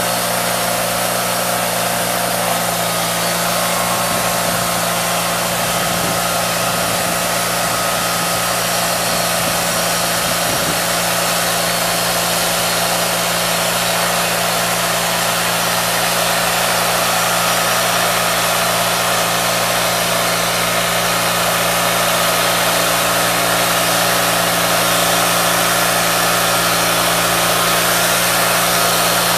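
Steady engine noise from a running portable band sawmill as its saw head travels along the log bed, together with a Takeuchi TL8 compact track loader's diesel engine running close by.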